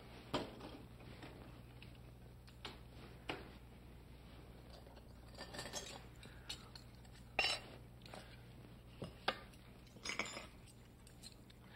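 Scattered light clinks and knocks of kitchen utensils against metal pans and a serving platter as poached chicken breasts are lifted out and laid on the rice, over a low steady hum.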